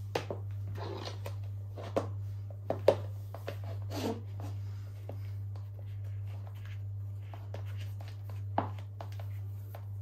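Strappy high-heeled sandals being put on and buckled: soft handling of the straps and buckle with a few clicks and taps of the heels on the floor, the loudest about three seconds in. A steady low hum runs underneath.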